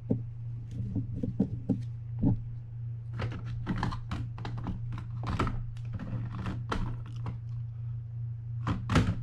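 Small fishing-reel parts and hand tools clicking and tapping in quick, irregular bursts while a Shimano TLD25 lever-drag reel is worked on by hand, with a couple of louder knocks near the end. A steady low hum runs underneath.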